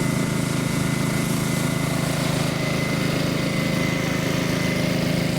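Engine running steadily at an even speed, with a faint high whine on top.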